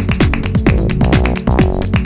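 Electronic dance music with a fast, steady kick-drum beat and sustained synth chords.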